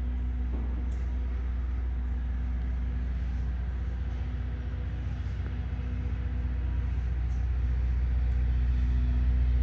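Steady low hum with a faint constant tone over it, growing a little louder over the last few seconds, with a few faint clicks.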